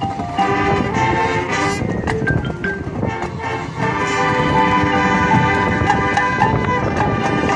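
High school marching band playing: brass over drums and percussion, settling into a long held brass chord from about four seconds in.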